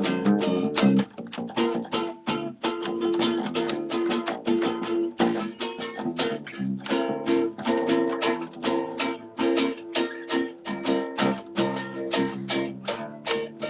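Acoustic guitar (violão) and acoustic bass guitar (baixolão) playing a samba: fast, rhythmic plucked chords over a walking bass line.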